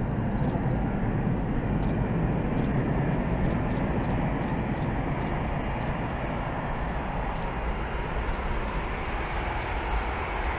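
Jet engines of a large four-engine cargo plane on final approach for landing, a steady loud rush with a whine that starts to rise near the end as the plane comes close.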